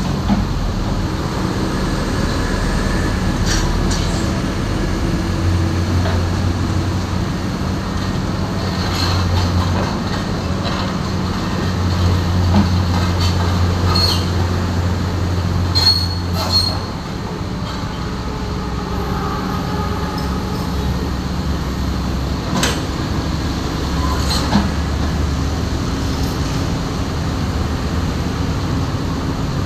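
Diesel engine of a Komatsu PC 200-8 excavator running under load, its low hum rising for several seconds and then easing, with short high squeals and sharp clanks of steel crawler tracks and metal on metal.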